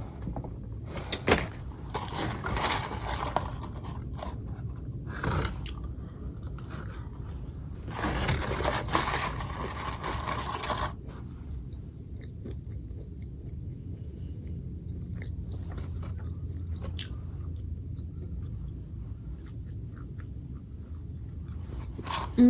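A person eating fast food close to the microphone: chewing and biting, with louder crunchy bursts in the first half and quieter, scattered chewing clicks after that.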